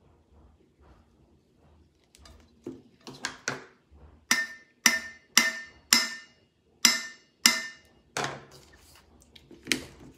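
A 30-ounce stainless steel skinny tumbler knocked about a dozen times, roughly two knocks a second, each with a short metallic ring, to tap excess glitter off its wet epoxy coat.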